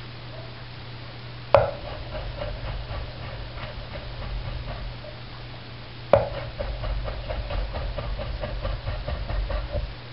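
Chef's knife chopping diced tomato on a cutting board. A sharp first strike about a second and a half in, then a quick run of lighter chops; a second sharp strike about six seconds in, then another quick run. A steady low hum underneath.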